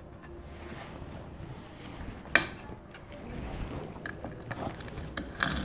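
Hand-held tile cutter's wheel scoring a line across a vitrified tile, guided along a wooden straightedge: a quiet scraping rasp with small clicks, and one sharp click about two seconds in.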